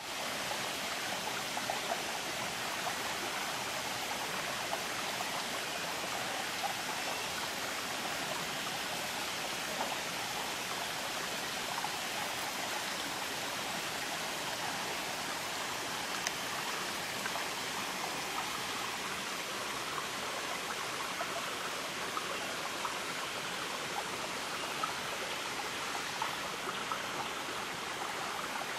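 A steady, even rushing noise with a few faint ticks scattered through it.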